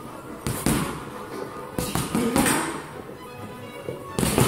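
Several dull thuds of boxing-glove punches landing during a pad or partner drill, with footwork on the mats, over background music.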